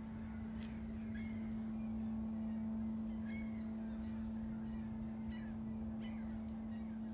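Birds chirping, a handful of short falling chirps spread through, over a steady low mechanical hum that is the loudest sound throughout.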